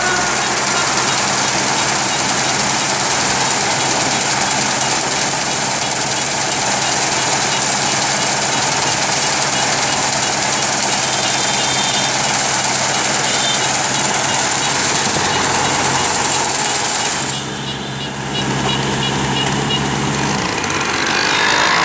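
Kubota SR55 combine harvester running, its engine and machinery making a steady, dense mechanical noise. The sound thins briefly about 17 seconds in.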